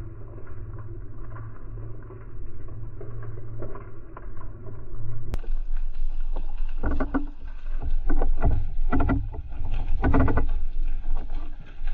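Boat on the sea: a steady low hum for the first few seconds, then after a cut about five seconds in, louder irregular rushes of water noise with knocks.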